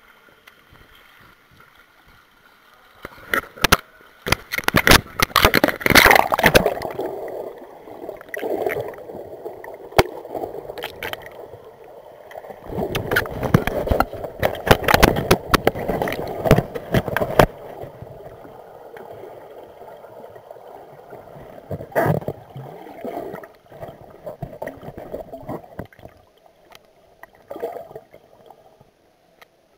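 Muffled gurgling and sloshing of pool water heard through a submerged camera, with sharp knocks now and then. It is quieter for the first few seconds, then busier.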